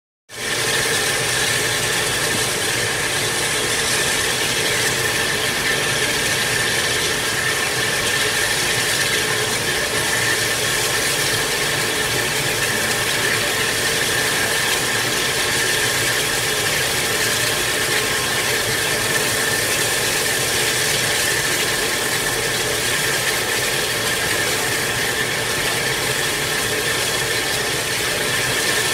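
Steam tank locomotive standing at the platform, simmering with a steady, unchanging mechanical hiss.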